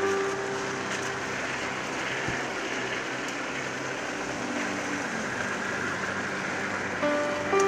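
Steady rushing rumble of a rail pushcart trolley rolling along the tracks, with a few held music notes at the start and again near the end.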